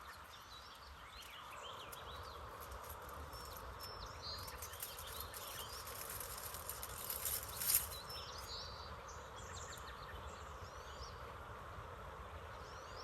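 Small birds chirping in short, scattered calls over a faint steady insect hum, with a brief rustle about seven and a half seconds in.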